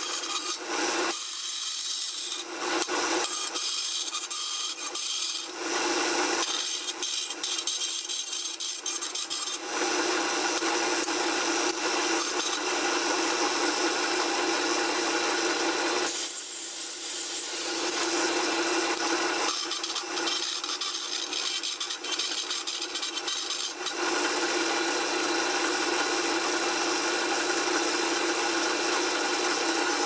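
Vertical band saw running, its blade rasping as it cuts a small copper-coloured sheet-metal disc, over a steady motor hum.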